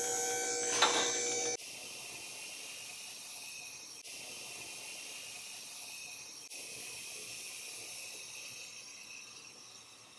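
Electric hydraulic pump motor of a drive-on vehicle lift running with a steady whine, cutting off abruptly about a second and a half in. A steady hiss follows and slowly fades.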